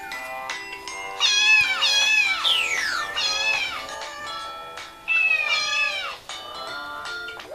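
A domestic cat meowing several times in drawn-out, wavering whines, with background music underneath.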